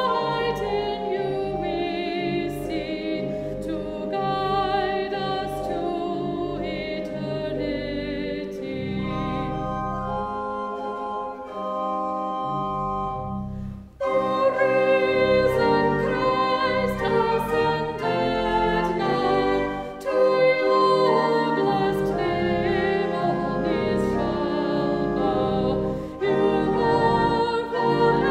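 Two women singing a hymn with vibrato over sustained organ accompaniment. About halfway through there is a brief break, after which the singing comes back louder.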